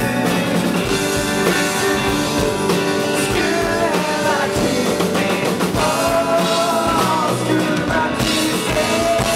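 Live rock band playing: a male lead singer sings over strummed acoustic guitars and a drum kit.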